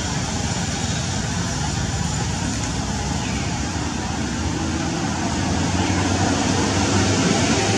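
Steady rumble and hiss of motor traffic, with a low engine hum that grows a little louder about two-thirds of the way in.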